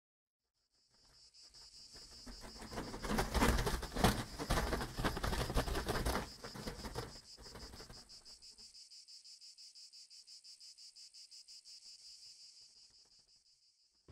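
Crickets chirping in a fast, even pulse throughout. From about a second in, a fluttering rush of flying paper sheets swells up over them, is loudest around the middle and dies away by about eight seconds.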